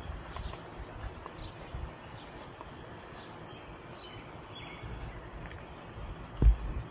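Quiet yard ambience with faint, short chirps from birds and insects and soft footsteps on grass, with one low thump about six and a half seconds in.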